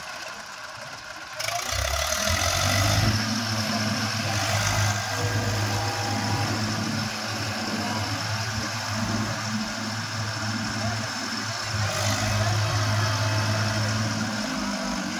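Tractor diesel engines running hard under load as one bogged tractor tries to tow another out of deep mud. The engine note jumps up sharply about a second and a half in and holds, swelling slightly, until just before the end.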